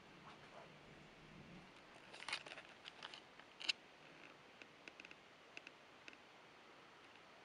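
Near silence broken by a scatter of faint, sharp clicks and ticks: a cluster about two to three and a half seconds in, then a few lighter ticks.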